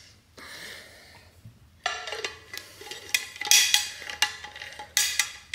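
Dishes and hard kitchen items clattering and clinking with brief ringing tones, starting about two seconds in after a soft rustle.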